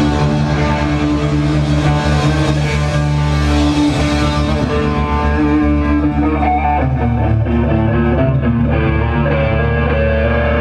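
Live rock band playing an instrumental passage with no vocals, guitar to the fore over bass; a bright high wash fades out about halfway through.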